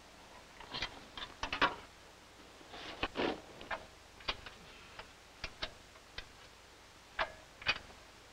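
Irregular clicks and knocks, about a dozen, unevenly spaced with no steady rhythm, the strongest coming about a second and a half and about three seconds in.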